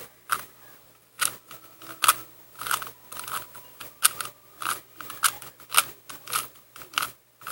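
Rubik's cube layers being turned by hand in quick succession, a sharp plastic click with each turn, about one and a half turns a second, as a PLL algorithm is run through.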